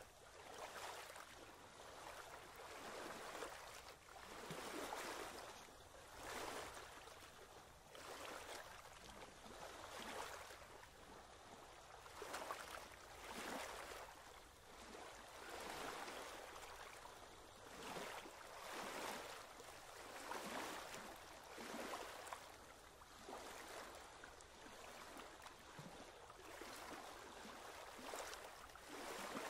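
Moving water: a soft rushing hiss that swells and fades every one to two seconds.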